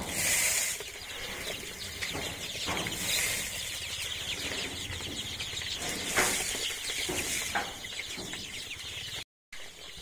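A brood of 19-day-old desi chicks peeping continuously. Dry feed crumble hisses as it is poured into plastic feeder trays, at the start and again twice.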